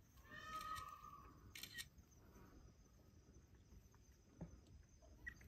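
Faint: one short, high call from a Japanese macaque about half a second in, a monkey coo, followed by a few soft clicks.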